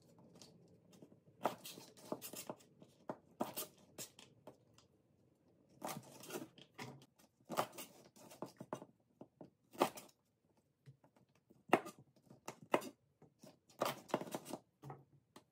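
Kitchen knife trimming and halving fresh green beans on a plastic cutting board: irregular sharp clicks of the blade cutting through the beans onto the board, some in quick runs, with short pauses between.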